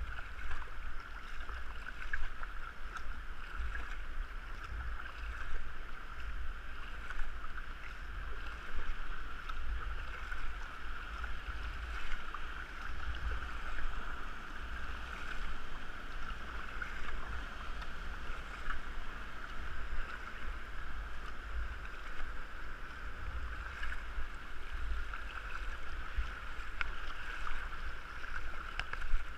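Fast, choppy river water rushing and slapping against a kayak's hull and paddle as it is paddled downstream. It is a steady rushing hiss over an uneven low rumble, with irregular splashy peaks.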